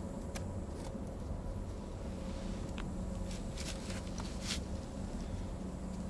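A few short rustles and light taps from a paper cutout being handled, glued and pressed onto a wooden wall, over a steady low background rumble.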